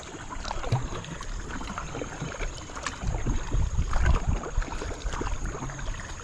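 Paddle strokes and water splashing and dripping around a paddled boat on a shallow creek, with irregular low knocks and rumble that are loudest about halfway through.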